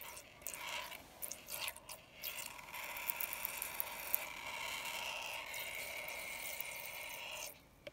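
A filled rubber balloon being squeezed and kneaded in the fingers: crackly rubbing and creaking of the stretched rubber, clicky at first, then steadier, stopping abruptly shortly before the end.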